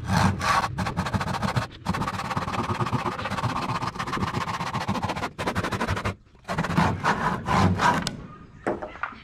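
Building work with hand tools: a rapid run of knocking and scraping for about six seconds, then a few louder separate knocks near the end.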